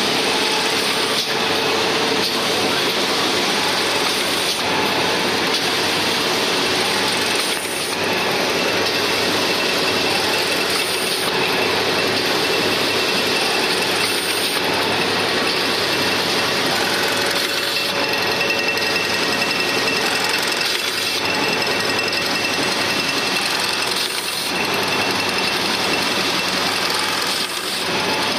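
Automatic leno mesh bag sewing machine running: the industrial sewing head, conveyor belts and rollers make a fast, steady mechanical clatter, with brief dips about eight seconds in and near the end.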